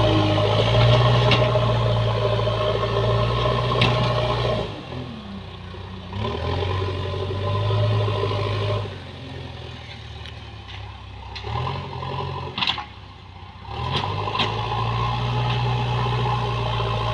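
JCB backhoe loader's diesel engine running, its note dropping away and picking up again several times, with a few sharp metallic clanks.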